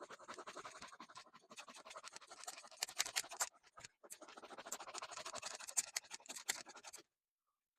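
Handsaw sawing through a fallen tree limb with rough, rasping strokes. It runs in two spells with a short pause about three and a half seconds in, then stops about seven seconds in.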